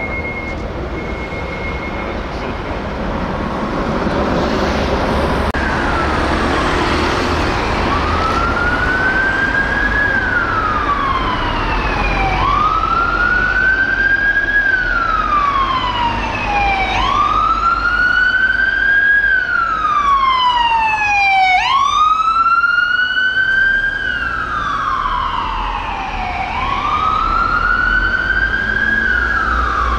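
UK emergency vehicle siren on a slow wail, rising and falling about every four and a half seconds, coming in a few seconds in over road traffic noise. It grows louder and is loudest about three-quarters of the way through as the vehicle passes.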